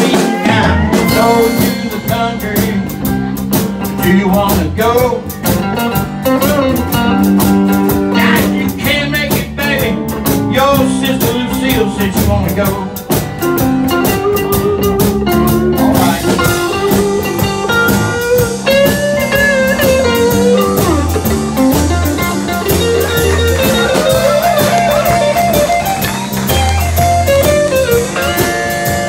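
Live band playing: strummed acoustic guitar, electric bass, electric guitar, pedal steel guitar and drum kit.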